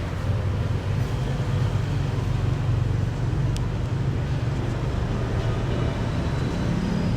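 Steady city traffic noise: a continuous low rumble of passing vehicles.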